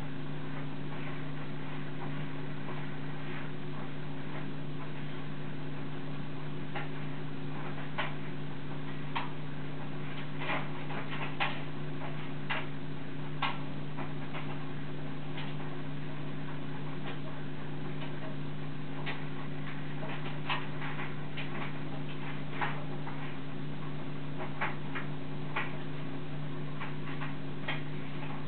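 A steady low hum with faint, irregular light clicks and taps scattered through it.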